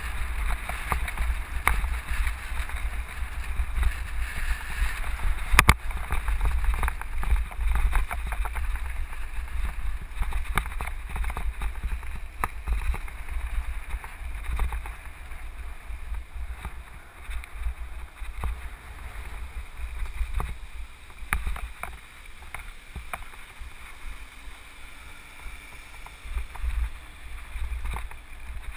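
Wind rumbling on the microphone while riding over a rough dirt road, with frequent rattles and knocks from the bumps and one sharp knock about six seconds in.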